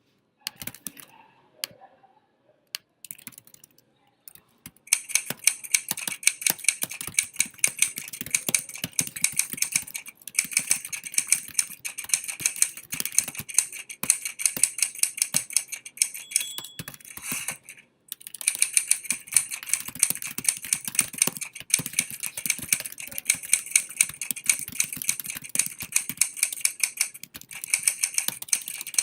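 Fast typing on a computer keyboard: a few scattered key clicks, then rapid, continuous keystrokes from about five seconds in, with a brief pause a little past the middle.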